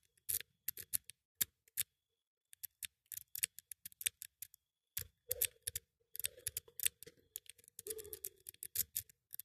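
A lock pick raking the pin stack of a small ABUS Discus disc padlock under light tension: quick, irregular metallic clicks and scrapes in bursts, with a pause about two seconds in. The raking is an attempt to push the spool pins into a false set.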